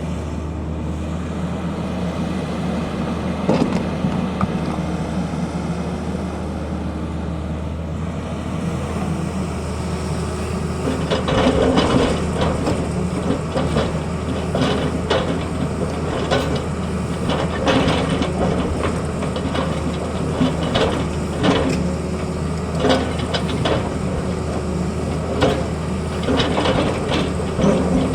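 Tata Hitachi excavator's diesel engine running steadily under load. From about eleven seconds in come repeated clanks and scrapes, like the bucket working the ground.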